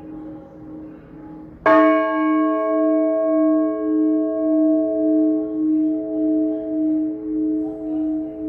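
An Orthodox church bell struck once, hard, about two seconds in. Its tone rings on with a slow, even wavering as it dies away, over the hum left from the previous stroke.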